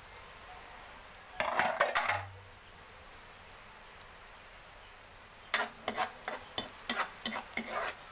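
Onion and garlic frying in oil in a steel wok, a faint steady sizzle. A short scrape comes about a second and a half in. From about two-thirds of the way through, a metal spatula scrapes and clicks against the wok as the garlic is stirred.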